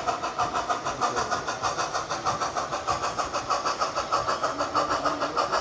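O gauge model steam locomotive chuffing, with steady, even beats at about four to five a second as it runs along the track.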